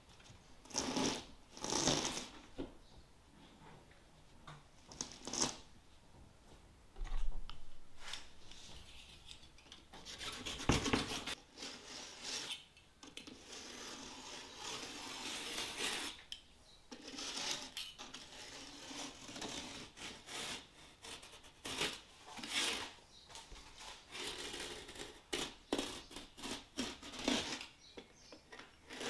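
Repeated scraping strokes of a hand tool rubbed against a building surface, a few spaced apart at first, then coming about once a second.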